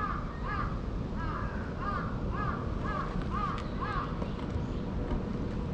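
A crow cawing in a quick run of about eight short calls, roughly two a second, stopping about four seconds in, over a steady low background rumble.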